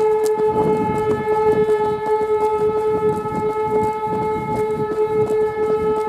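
E57 electromechanical air-raid-style siren sounding a steady, held tone with strong overtones: a call-out alarm summoning the volunteer fire brigade.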